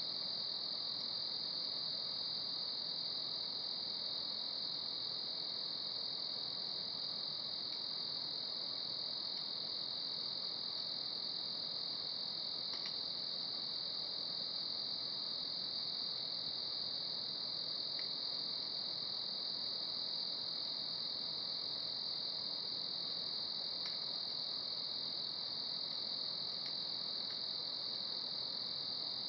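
Steady, high-pitched chorus of insects singing without a break, with a few faint crackles from a wood fire.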